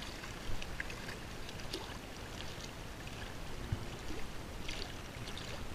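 Water trickling and dripping off a round hoop crab net as it is lifted out of shallow water, with small waves lapping at the edge.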